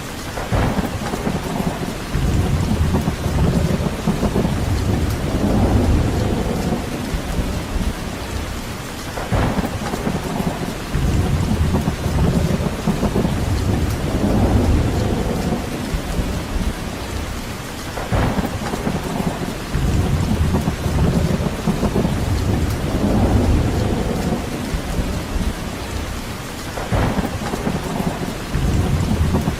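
Steady heavy rain, with a deep rumble that swells up and fades away about every nine seconds.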